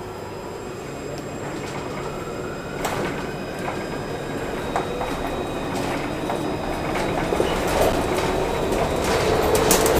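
Luas tram heard from inside the passenger car as it gathers speed: the running noise grows steadily louder and a motor whine rises slowly in pitch, with a few sharp clicks and knocks from the car.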